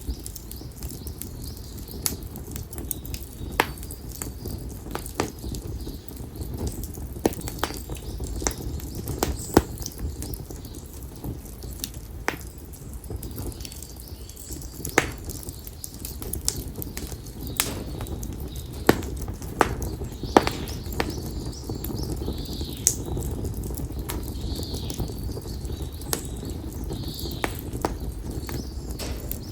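Split konara oak firewood burning in an open fire, crackling with irregular sharp pops over a low steady rush of flame. Birds chirp faintly in the background, more often in the second half.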